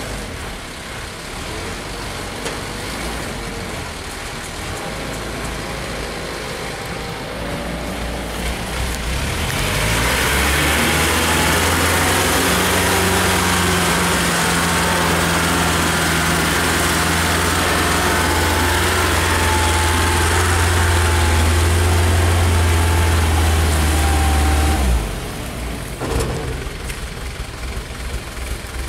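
Diesel engines of a mini excavator and a dump truck running at a construction dig. About ten seconds in, a much louder steady low engine drone begins as the dump truck is driven close by, and it drops off sharply about twenty-five seconds in, leaving the lighter engine sound.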